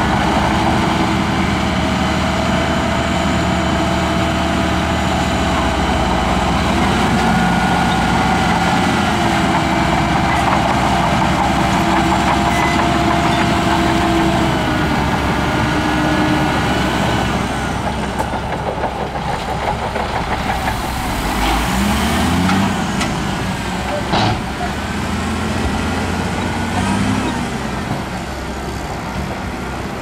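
Dump truck's diesel engine running steadily while the hydraulic hoist raises the bed to tip a load of sand. The engine pitch shifts up and down a couple of times in the first half. The sound drops somewhat from about two-thirds in, with a few short rising and falling whines after that.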